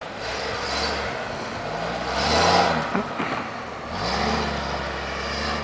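Pickup truck engine revving as it drives through snow, its pitch climbing twice, with a steady hiss of tyres on the snow.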